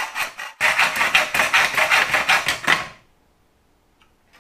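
Hacksaw cutting through an aluminium attic-ladder rail with fast back-and-forth strokes, about four or five a second. The strokes pause briefly and then come louder, and the sawing stops about three seconds in as the cut goes through.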